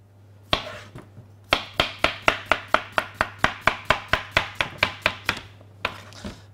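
Kitchen knife chopping courgette on a cutting board: one cut, then a quick, even run of knife strokes hitting the board, about six a second for nearly four seconds, and a couple more near the end.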